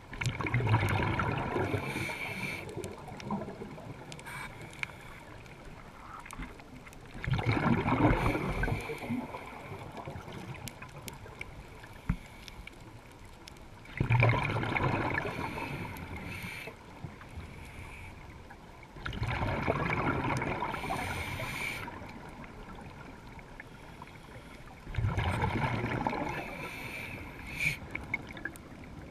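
A scuba diver's regulator breathing underwater: five loud bubbling rushes of exhaled air, one about every six seconds, with a quieter hiss between them.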